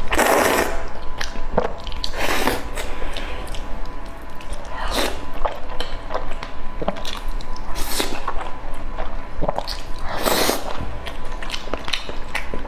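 Close-miked eating: chewing and biting, with a louder noisy burst every two to three seconds and small wet clicks between.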